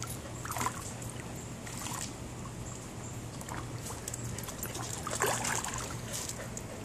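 Water lapping and splashing lightly as a dog paddles in a swimming pool, over a steady low hum.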